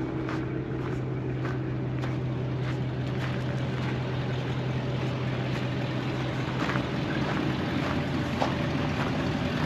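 GMC box truck's engine idling steadily, while footsteps crunch on gravel about every half second to second.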